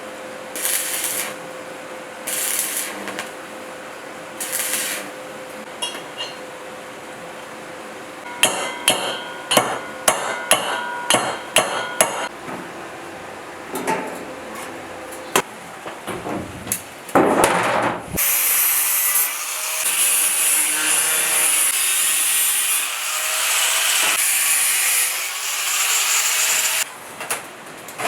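Hammer blows on metal during a repair of a large electric motor: about a dozen sharp, ringing strikes in quick succession, after a few short scrapes. In the second half comes a long stretch of steady high hissing noise.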